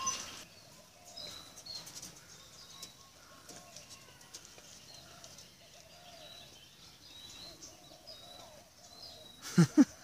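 Aviary birds chirping and calling, with many short high chirps and repeated short lower calls throughout. Two loud, sharp sounds come close together near the end.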